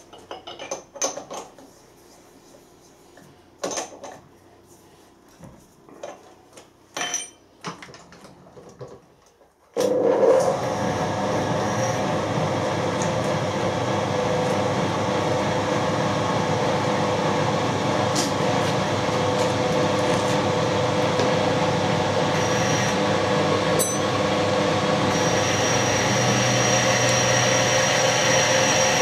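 Short clicks and knocks of the milling machine vise and steel angle being handled and set. About ten seconds in, the vertical milling machine's spindle starts suddenly and runs steadily, drilling the steel angle, and a thin high whine joins in near the end.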